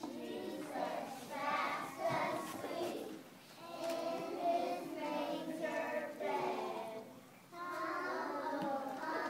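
A group of young children singing a song together, in sung phrases with two short breaks.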